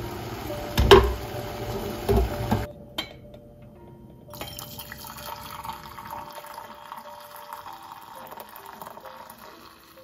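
Water being poured into a vessel, with two knocks in the first few seconds.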